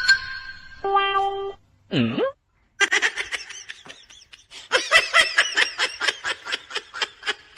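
A couple of short pitched sounds and a quick swooping sound, then about five seconds of rapid, repeated laughter.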